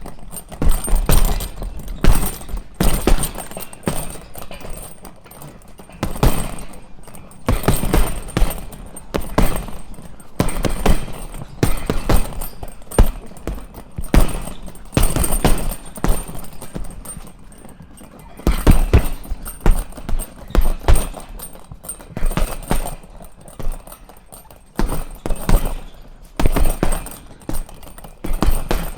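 Punches landing on a punching bag: sharp thuds in quick runs of a few blows at a time, with short pauses between the combinations.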